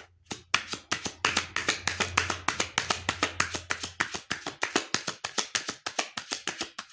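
A tarot deck being shuffled by hand: a fast, even run of card slaps and clicks, about seven a second.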